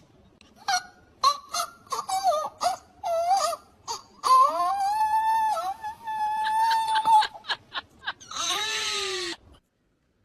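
An animal calling: a quick series of short pitched calls, then one long held call about halfway through, and a falling call near the end.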